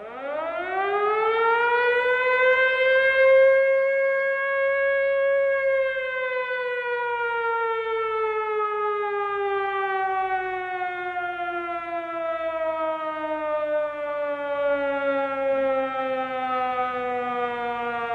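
A siren giving one long wail: it rises in pitch over the first couple of seconds, holds steady for a few seconds, then slowly winds down in pitch for the rest of the time.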